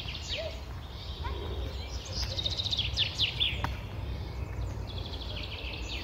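Several songbirds chirping and singing, with a rapid trill about two seconds in and a few falling whistled notes after it, over a steady low background rumble.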